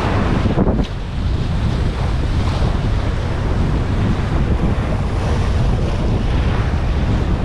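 Steady wind noise buffeting the microphone over the wash of sea waves.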